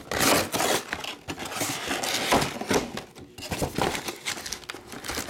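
Cardboard mega box of trading cards being opened by hand: irregular rustling and scraping of the cardboard flaps and packs.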